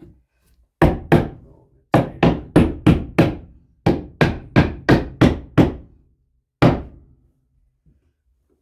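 A cut wooden piece being knocked into place between wall studs: a run of sharp wooden knocks about three a second, in short groups, with a last single knock near the end.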